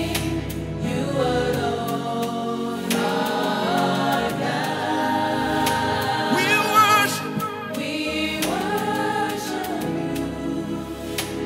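Live gospel worship music: a male lead vocalist sings into a microphone over sustained backing chords, with choir voices. About halfway through he holds a wavering note.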